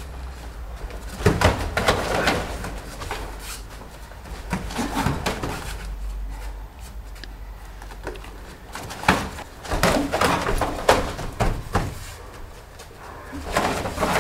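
Karate sparring on foam mats: flurries of sharp thuds and slaps from punches, kicks and footwork, several exchanges a few seconds apart with quieter moments between.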